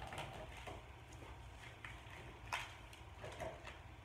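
Faint, irregular crunches and clicks of a dry taro wafer being bitten and chewed, the sharpest about two and a half seconds in.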